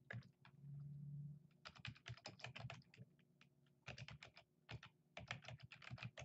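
Typing on a computer keyboard in three quick bursts of keystrokes, with a short low hum about a second in.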